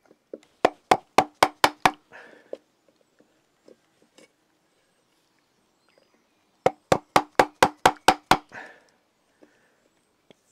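Maul striking wood in quick, sharp knocks about four a second: a run of about six in the first two seconds, then a run of about eight around seven seconds in.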